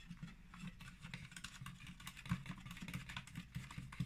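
Quiet, irregular small clicks and ticks of a screwdriver driving in the screws that hold the bottom cover of an Intel NUC mini PC.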